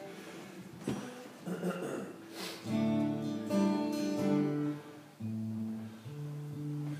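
Acoustic guitar being played: a few sparse notes and sharp pick strokes at first, then full strummed chords ringing from about three seconds in.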